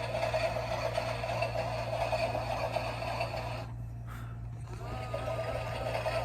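Toy washing machine running a wash, its small motor turning the drum with a steady hum. The sound drops out briefly a little under four seconds in, then starts again.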